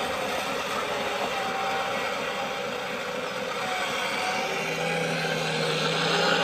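Radio-controlled model construction machines at work, led by a scale hydraulic excavator swinging its boom: a steady mechanical whirr with an engine-like drone. A steady low hum joins about two-thirds of the way in.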